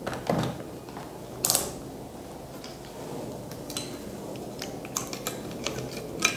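Scattered clicks and light knocks of a camera charger's open power-supply board and its plastic cover being handled and turned over on a workbench, the loudest about a second and a half in.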